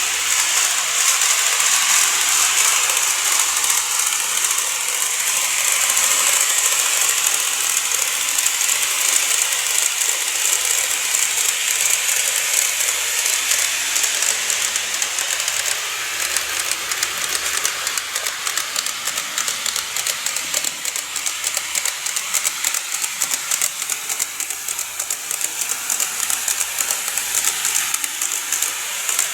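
N-gauge model train running on its track: a steady whirring hiss of motor and wheels with a rapid stream of fine clicks from the wheels over the rail joints, the clicks growing more distinct about halfway through.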